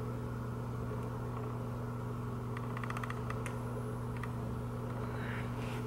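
Steady low electrical hum of room tone under a quiet draw on a dab vape pen. There is a short run of faint crackling about halfway through and a soft breath near the end.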